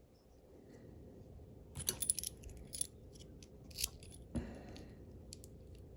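Small metallic clicks and taps from handling a steel padlock and its key, with a cluster of clicks about two seconds in and a heavier knock a little past the middle.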